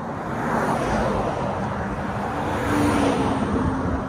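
Heavy lorry passing close by on the motorway: engine and tyre noise building to a peak about three seconds in, its engine tone dropping in pitch as it goes by.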